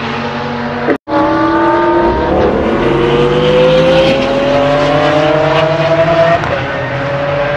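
Lamborghini Aventador's V12 at full throttle, engine note rising through a gear, dropping back at an upshift, then climbing in one long pull before another upshift near the end. Before a brief break in the sound about a second in, another Lamborghini engine runs at a steady pitch.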